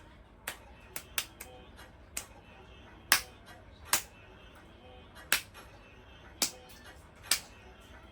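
Eating sounds: sharp, separate clicks and smacks, about one a second at irregular spacing, over faint background music.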